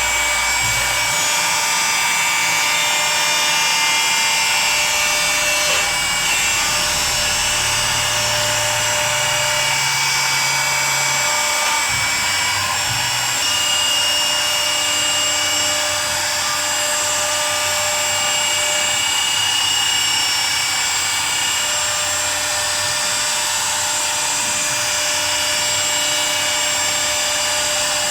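CNC wood router cutting a design into wood: a steady high spindle whine over the rasp of the bit in the wood, its tones shifting now and then as the cut moves.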